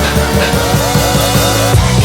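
Background music: an instrumental track with a steady drum-kit beat.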